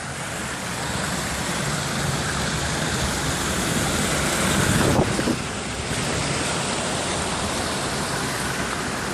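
Steady rush of creek water spilling over sandstone into a rock pool, mixed with wind on the microphone, with one brief louder burst about five seconds in.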